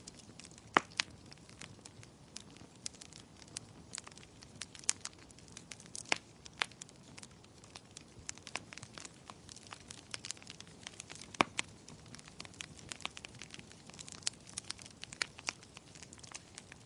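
Wood fire crackling in a fireplace: irregular sharp pops and snaps over a soft steady hiss, with two louder snaps, one about a second in and one near the last third.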